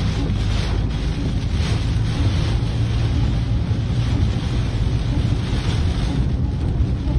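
Heavy downpour beating on a moving car and its tyres running through standing water on the motorway, heard from inside the cabin: a steady noise with a deep rumble underneath.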